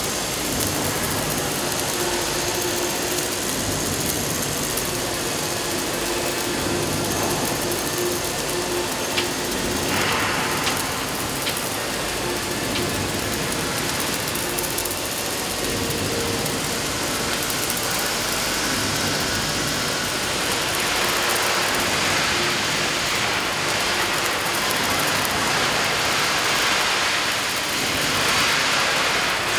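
Welding arc of a wall-climbing welding robot laying a seam on a steel tank wall: a steady hiss, growing a little louder in the second half, with a faint steady hum underneath.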